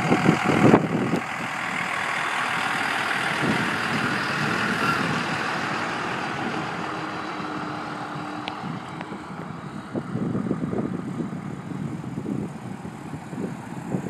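A school bus driving past close by, its engine and tyre noise slowly fading over several seconds, with an uneven rumble of wind or the next vehicle in the last few seconds.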